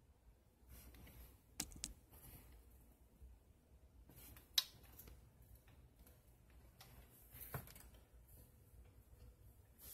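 Near silence with faint room tone, broken by a few short clicks and taps: two close together about one and a half seconds in, a sharper one about four and a half seconds in, and another about seven and a half seconds in.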